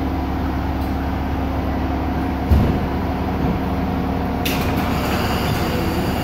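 2014 Seagrave Marauder II fire engine's diesel engine idling steadily, ready to respond. A single thump comes about two and a half seconds in, and a steady hiss joins about four and a half seconds in.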